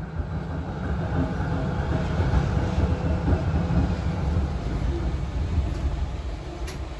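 Melbourne tram running along the track, heard inside the passenger saloon: a steady low rumble of motors and wheels on the rails.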